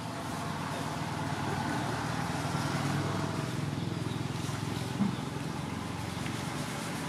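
Steady low hum of an engine running in the background, with one short blip about five seconds in.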